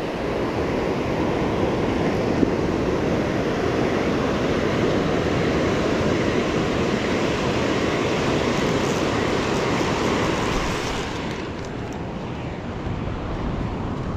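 Ocean surf washing on the beach, a steady rush with wind buffeting the microphone; it swells about a second in and eases near the end.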